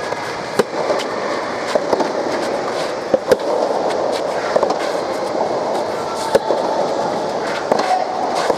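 Steady murmur of a spectator crowd, with scattered sharp knocks or claps cutting through it at irregular moments.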